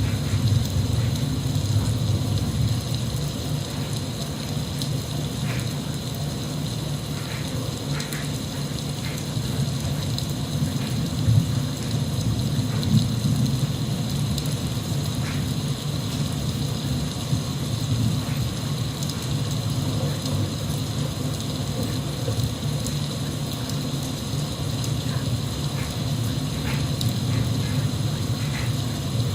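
Steady rain, a continuous hiss with a deep low rumble underneath and scattered light drip ticks.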